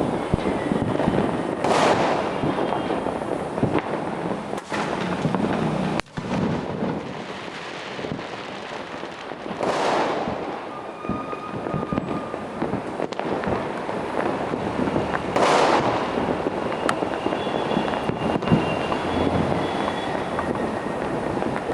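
Fireworks and firecrackers going off without pause: a dense, steady crackle of many small bangs, with three louder bursts spread through.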